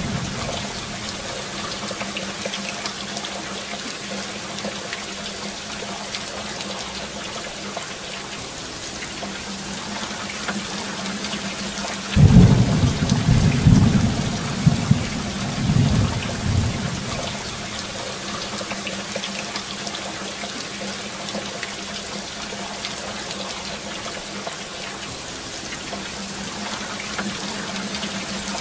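Steady heavy rain. About twelve seconds in, a clap of thunder breaks in suddenly and rumbles on in several rolls, dying away after about five seconds.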